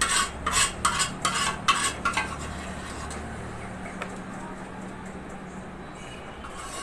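Spoon scraping and clinking against a bowl as gravy is emptied into a pot: a quick run of strokes, about three or four a second, for roughly two seconds, then only a steady low hum.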